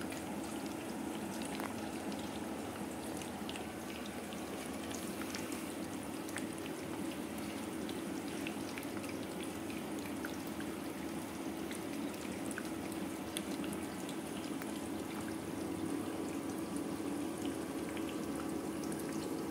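Electrolysis gas from a TX-H3000B hydrogen inhalation machine bubbling steadily through the water in its humidification bottles at full gas production, a continuous fizz of many small pops. A steady low hum runs underneath.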